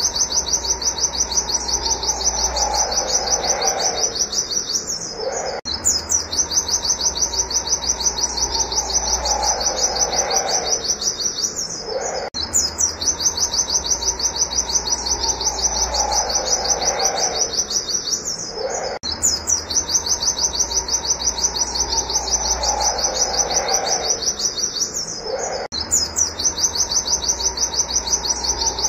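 White-eye (pleci) singing its fast, unbroken run of high 'wit wit' notes, many per second. A lower call sliding downward comes in every few seconds, and the whole passage breaks off briefly and starts over about every six and a half seconds.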